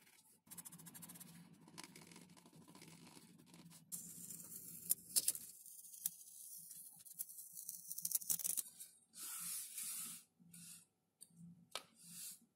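Hand-working sounds from building a foam-and-balsa model plane: steady rubbing and scraping, then louder scratchy strokes and a few short tearing or hissing bursts in the second half.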